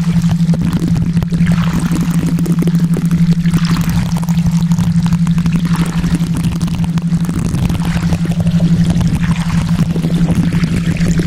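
A steady low hum from a theta-wave tone, over an even bed of running-water noise, the backing of a subliminal affirmation track.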